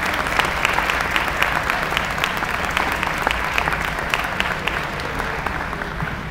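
Audience applauding: many hands clapping in a dense patter that eases off toward the end.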